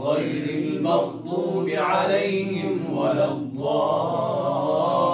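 Male voice chanting Quranic recitation in the quick hadr style, the pitch bending and held on drawn-out syllables, with short breaks for breath about a second in and again about three and a half seconds in.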